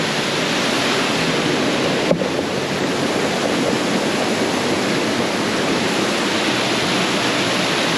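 Waterfall rushing steadily, a constant loud hiss of falling water, with a single brief tap about two seconds in.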